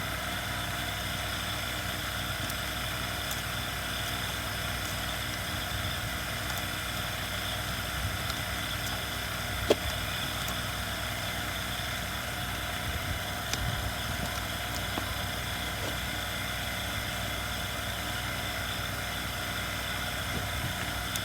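A steady background hum runs throughout, with a few faint clicks and taps from small parts being handled as a fuel line is worked into a chainsaw, one sharper click about ten seconds in.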